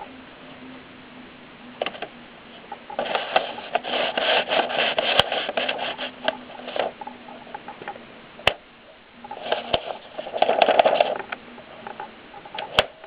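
Kolibri portable typewriter being typed on: two bursts of rapid key strikes, one starting about three seconds in and one near ten seconds, with a few single sharp clicks between them.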